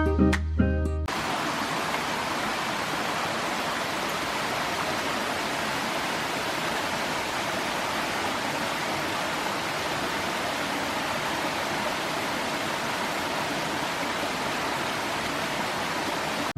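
Background music cuts off about a second in, giving way to an even, steady rushing noise with no rhythm or pitch.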